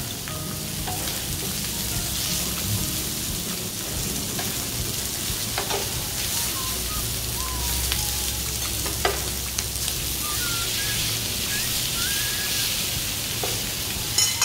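Pork belly sizzling on a hot tabletop grill pan, a steady frying hiss, with a few light clicks of metal tongs and scissors against the pan.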